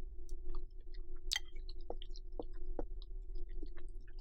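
Close-miked soft chewing of mac and cheese: scattered small wet mouth clicks over a faint steady hum.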